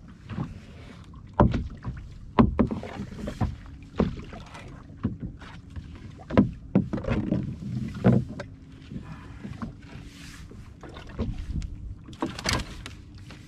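Irregular knocks and thumps on a small fishing boat, water slapping the hull and gear clattering while a fish is reeled in and handled on deck, over a faint steady hum.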